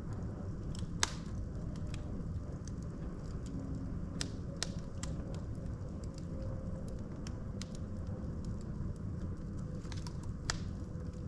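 Wood logs burning in a fireplace: irregular crackles and sharp pops over a steady low rumble of flames, with one louder pop about a second in.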